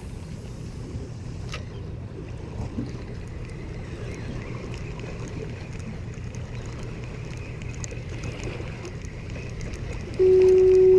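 Small boat's motor running at idle, a steady low hum, with wind and water noise and a few light knocks. Near the end a loud steady single-pitched tone begins.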